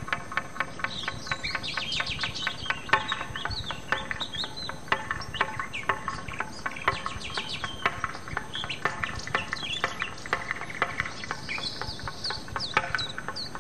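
Birds chirping with many short rising and falling chirps, layered over background music with a quick, even pulse.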